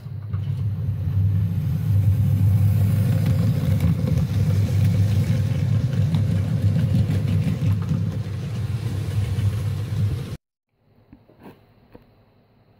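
Model railway goods train running past close by: a steady rumble of metal wheels on the track with the hum of the locomotive's electric motor. It cuts off suddenly about ten seconds in, leaving only faint clicks.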